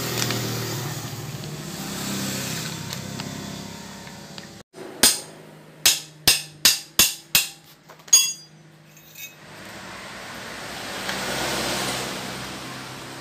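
A motor vehicle engine running steadily, then, after a short break, seven sharp ringing hammer blows on metal in quick succession, about two a second, the last a little apart from the rest. Engine and traffic noise comes back for the last few seconds.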